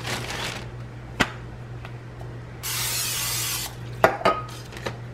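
Canola oil cooking spray hissing onto a flour tortilla in one steady burst of about a second, midway through, after a shorter hiss at the start. A few light taps from the tortillas and plate.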